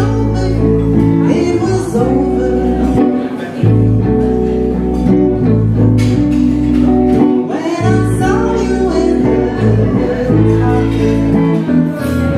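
Live blues band: a woman singing into a microphone over an electric guitar and a steady low bass line.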